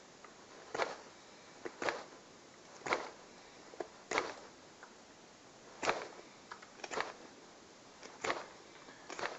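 Stainless steel blade, cut from a flattened spoon, drawn by hand across the coarse side of a sharpening stone: short scraping strokes at an even pace of about one a second.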